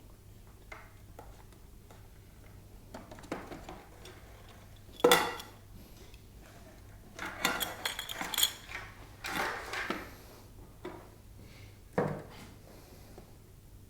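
Intermittent clatter of hard parts being handled while a Fujitsu Nocria X wall air conditioner is taken apart: a sharp knock about five seconds in, a run of clinks and rattles in the middle, and another knock near the end.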